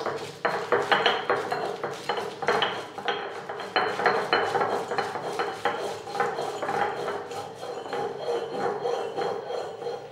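Stone roller crushing and grinding garlic cloves and a ripe red chilli into paste on a granite grinding stone, in repeated rough rubbing strokes with knocks, about two a second.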